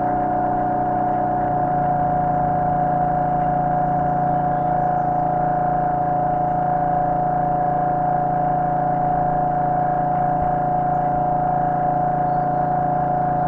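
Background music: a steady, sustained synthesizer-like drone, with a strong held high note over low held tones that shift to a new chord about a second and a half in.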